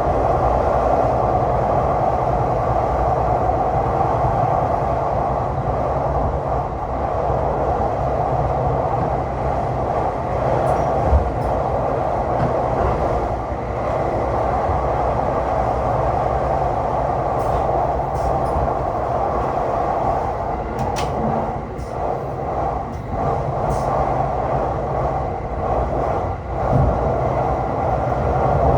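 Running noise of a Tokaido Line electric train heard from inside the car: a steady rumble of wheels on rail, with scattered sharp clicks in the middle stretch.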